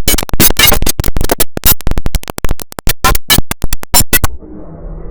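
The IBM OS/2 Warp 3 shutdown sound, heavily effect-edited. It is chopped into a loud, rapid stutter of short slices, several a second, like record scratching. About four seconds in it cuts abruptly to a much quieter, muffled version with faint steady tones.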